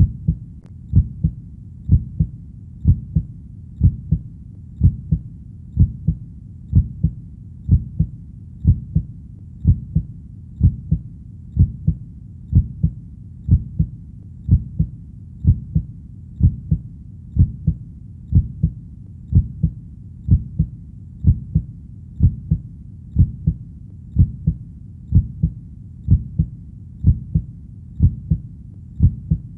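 Heartbeat sound: a steady lub-dub at about one beat a second, each beat a low double thud, with a faint low rumble between beats.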